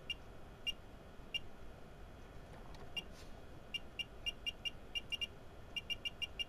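Short, high electronic beeps from a signal generator as its rotary frequency knob is turned, one beep per step. A few spaced beeps come first, then quicker runs near the end as the output frequency is wound down.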